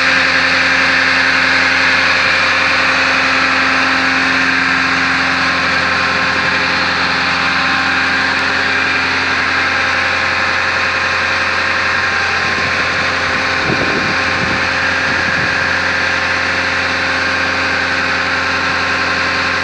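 Water-well drilling rig's engine running at a steady speed, a constant loud drone with a steady hum.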